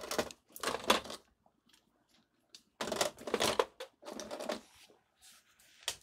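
Oil paint tubes being handled and rummaged through: several short bursts of rustling and clicking with pauses between.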